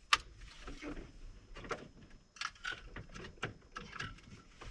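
A sharp click, then a string of quieter clicks, taps and small rattles of hands working the ignition key and the controls of a newly wired car radio before it powers on.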